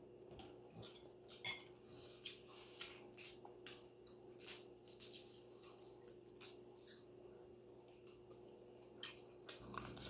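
Irregular close-up crackles and clicks of a cooked shrimp's shell being peeled off by hand, mixed with wet mouth sounds of eating.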